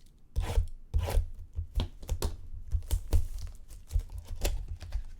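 The wrapping of a trading card box being torn open and crinkled by hand, in irregular crackling tears over low knocks from the box being handled on the table.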